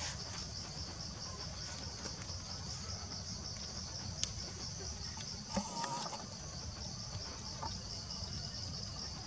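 Insects chirring in the forest: one steady, high, rapidly pulsing buzz that runs on without a break. A faint short call can be heard about six seconds in.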